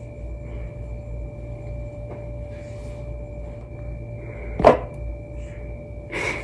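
Quiet room tone with a faint steady electrical hum, broken by a single sharp click about three-quarters of the way through.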